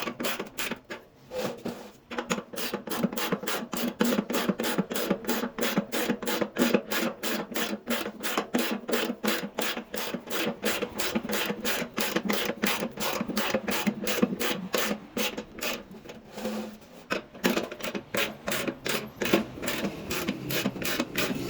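Hand tool ratcheting with a fast, even clicking of about four or five clicks a second, stopping briefly twice, as fasteners are worked during a washing machine teardown.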